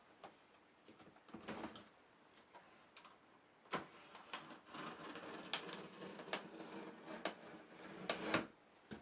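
A cardboard box being opened: a blade scraping along the taped top of the box, with rustling cardboard and sharp clicks. It is mostly scattered clicks and a short rustle at first, then dense scraping from about four seconds in until just before the end.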